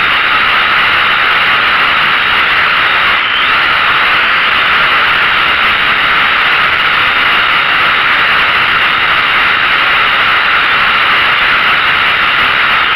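Small quadcopter drone's motors and propellers running in flight, heard through the drone's own onboard camera microphone as a loud, steady whirring hiss.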